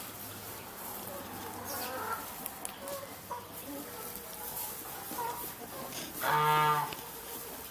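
Orpington chickens clucking softly with scattered short notes. One louder, drawn-out call comes about six seconds in.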